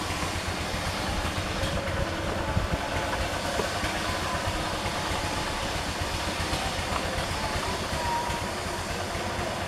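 Two-wheel walking tractor's diesel engine running steadily, a fast even chugging.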